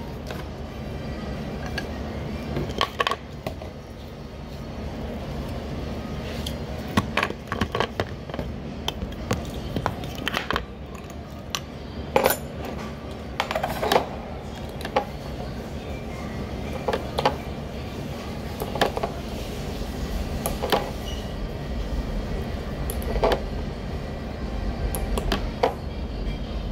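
Scattered clinks and knocks of bowls and chopsticks at a ramen-shop table, over the steady low hum of the shop's ambience.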